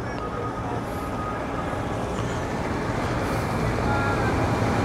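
A vehicle engine running steadily, a low hum that slowly grows louder.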